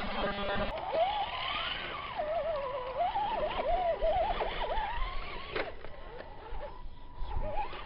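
Electric RC rock crawler's motor whining, its pitch jumping up and down with stabs of throttle for a few seconds, as the truck crawls over rock.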